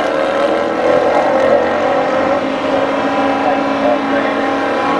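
Jeep Grand Cherokee SRT8 and another car running hard down a drag strip, engines held at high revs and heard from the stands, a steady loud drone of exhaust that drifts slightly in pitch.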